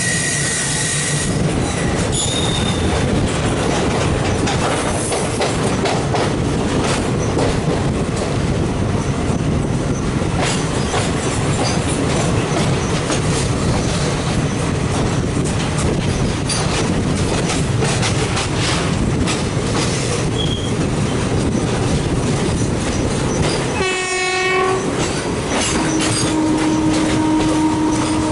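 An express train hauled by a WAP4 electric locomotive runs on the rails with a steady rumble and the clickety-clack of wheels over rail joints, with a few short, high wheel squeals. About 24 seconds in the locomotive's horn gives a short blast, and near the end a long steady horn-like tone begins.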